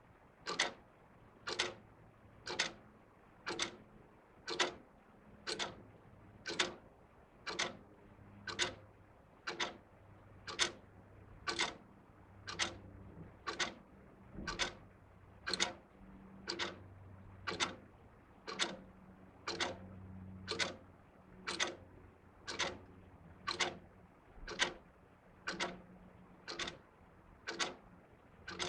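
Two wall clocks ticking, sharp even ticks at about one a second.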